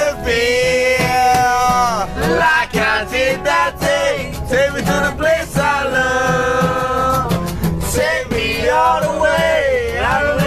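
Acoustic guitar strummed in a steady rhythm while a man sings held, wavering notes over it.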